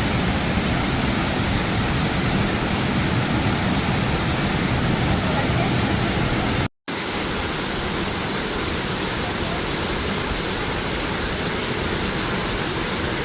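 Waterfall pouring steadily as a dense rushing hiss. It cuts out for a split second about seven seconds in, then goes on.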